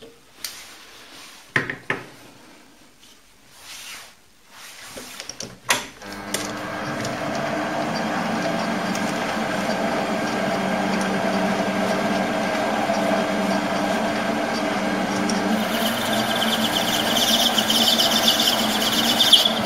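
A few knocks and clicks of handling, then about six seconds in an Optimum TU2004V bench lathe starts up and runs steadily with a hum and whine from its drive. About three seconds before the end a higher hissing squeal joins in as the cutting tool takes a cut on the spinning workpiece.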